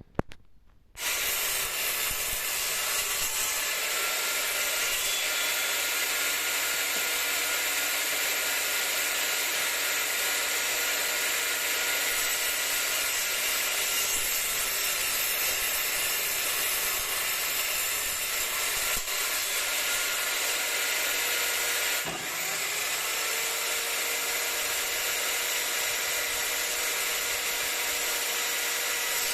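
Parkside PMTS 210 A1 table saw switched on about a second in and running steadily: a loud, even whirring hiss from the motor and blade. Its tone shifts slightly about 22 seconds in.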